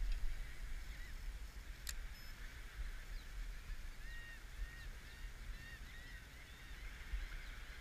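A flock of birds calling in many short, arched chirps, thickest from about three and a half to seven seconds in, over wind rumbling on the microphone. A single sharp click about two seconds in.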